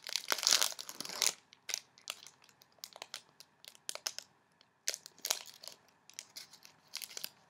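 Trading card pack wrapper being torn open and crinkled by hand: a dense rush of crinkling through the first second or so, then scattered short crackles.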